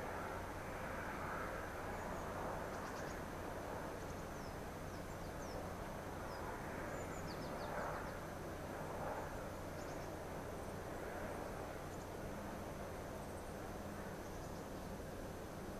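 Faint, distant drone of a DD51 diesel-hydraulic locomotive hauling a long freight train, swelling and fading slightly, with a low engine hum growing stronger near the end. Small birds chirp now and then over it.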